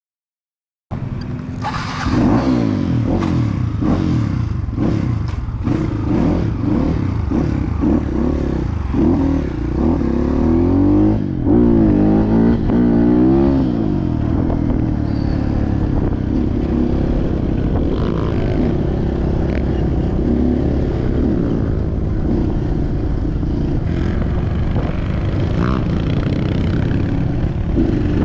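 Trail motorcycle engine running under way, its pitch rising and falling over and over with the throttle, settling to a steadier drone after about fourteen seconds. The sound cuts in abruptly about a second in.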